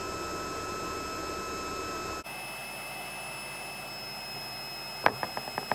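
Handheld magnetic induction heater running with its coil around a seized, rusted bolt: a steady fan-like hiss with thin high whining tones. The sound jumps about two seconds in, and near the end a run of sharp ticks comes over the hiss.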